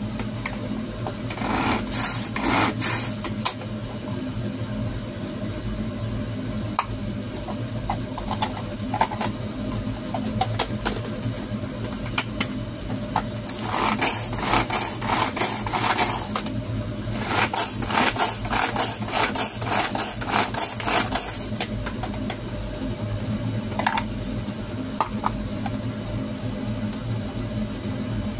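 Manual pull-cord food chopper mincing shrimp: runs of fast whirring clicks as the cord is pulled and the blades spin, once briefly and then in two longer spells of a few seconds each, over a steady low hum.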